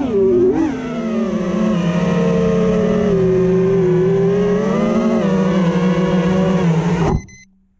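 FPV mini quadcopter's brushless motors and propellers whining, the pitch rising and falling with throttle in the first second, then holding a steady high drone. It cuts off abruptly about seven seconds in as the quad crashes into the grass.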